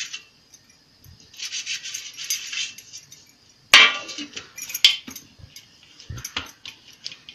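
An oiled hand rubs over a perforated steel steamer sieve with a rasping scrape, twice. Steel kitchenware then clangs and rings sharply about halfway through, with a further clink. Near the end come dull thuds as dough is pressed onto a steel plate.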